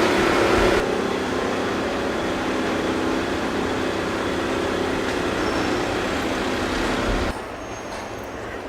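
Loud, steady vehicle noise from recordings spliced together. It changes abruptly about a second in, then drops to a quieter noise about seven seconds in.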